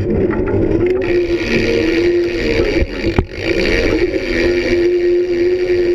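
A BMX bike rolling over a concrete skatepark: tyre rumble and a wavering whirring hum, with one sharp knock about three seconds in.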